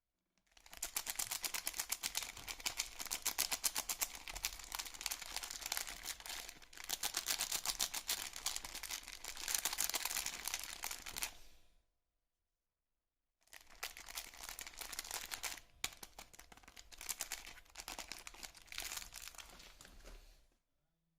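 Soap packaging wrapper crinkling and crackling as it is handled and unwrapped, in two long stretches with a short pause between; the second stretch is quieter.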